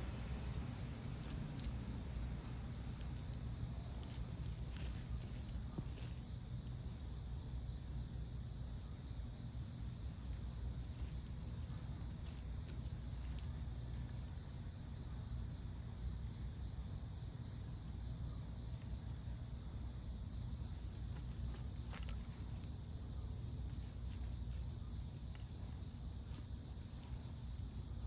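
Steady high chirping pulsed evenly several times a second, insect-like, over a low steady hum, with a few faint clicks now and then.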